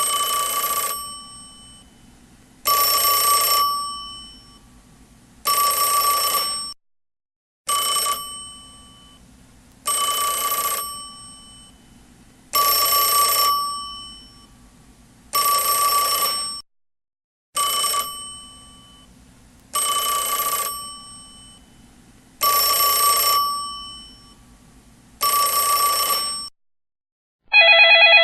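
Telephone bell ringing in repeated rings, each about a second long and fading away, roughly every two and a half to three seconds. The ringing stops briefly twice and starts again. Just before the end a different, louder steady tone begins.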